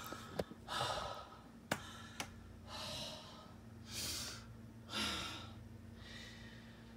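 A woman breathing hard in shaky sighs, about five breaths a second or so apart, as she calms down from the fright of killing a spider she is phobic of. A few small clicks sound in the first half.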